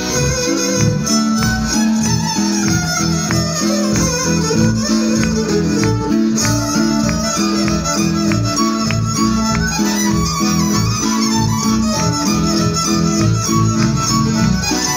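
Hungarian folk band playing live: fiddles carrying the tune over a bowed and plucked double bass keeping a steady, even pulse.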